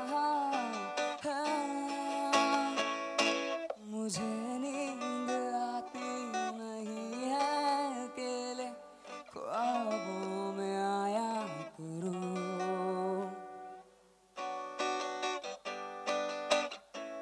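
Acoustic guitar strummed and picked as accompaniment while a young male voice sings drawn-out melodic lines into a microphone. About 14 s in the voice stops, and after a brief pause the guitar carries on alone with strums.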